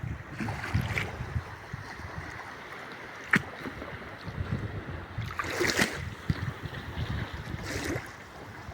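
Sea waves washing onto the shore, with wind buffeting the microphone. Two louder washes of surf come about two thirds of the way in and near the end, and there is one sharp click about a third of the way in.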